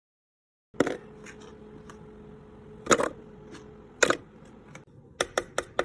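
Knife chopping vegetables on a cutting board: three sharp chops about a second apart, then a quick run of four near the end, over a faint steady hum.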